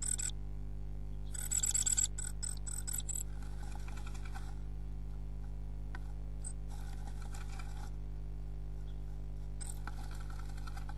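A tit inside a nest box scratching and rustling in its nest of moss and grass, working the material into shape while building the nest. It comes in about five short bouts of dry scraping, the loudest about two seconds in, over a steady low electrical hum.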